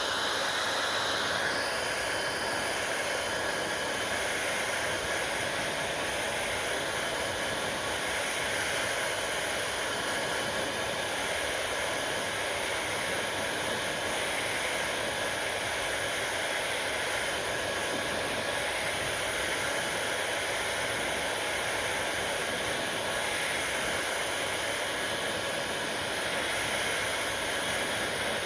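Hair dryer running steadily: an even, unchanging noise of blowing air.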